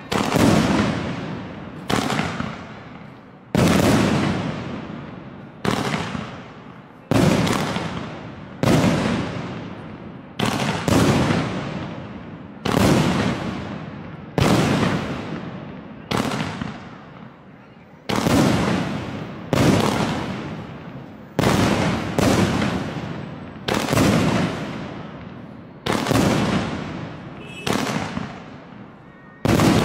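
2-inch, 49-shot fireworks cake firing its shells one after another, about one every one and a half seconds. Each is a sharp bang that dies away over a second or so before the next.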